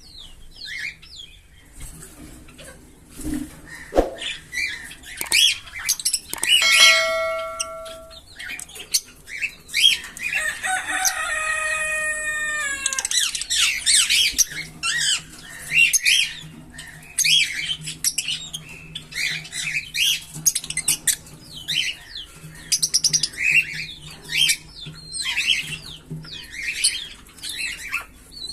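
A pair of Fischer's lovebirds chattering in quick, high chirps that keep on without a break. About ten seconds in, they run into a dense string of rapid falling chirps lasting a few seconds.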